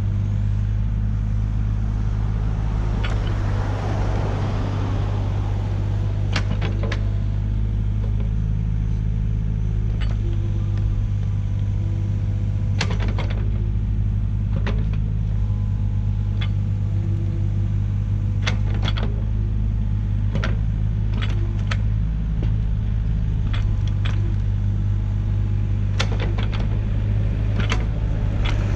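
Diesel engine of a John Deere 35D mini excavator running at a steady speed, with sharp knocks and clanks scattered throughout as the machine works.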